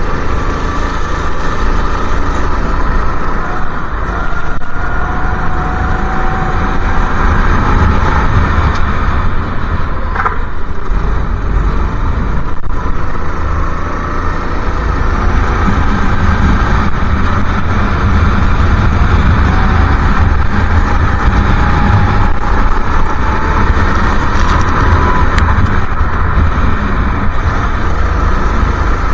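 Go-kart engine heard from onboard the kart, running loudly with its pitch rising as it accelerates and falling back into the corners, over a heavy low rumble.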